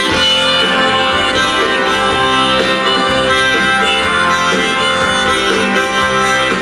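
Live band playing an instrumental intro: strummed acoustic guitar, electric bass and drums, with a held melody line over them.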